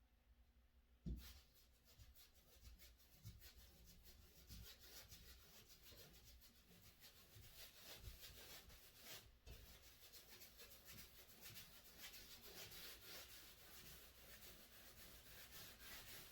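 Paintbrush strokes on a wall, faint and continuous: the bristles rubbing and scratching as paint is brushed on, with a light knock about a second in.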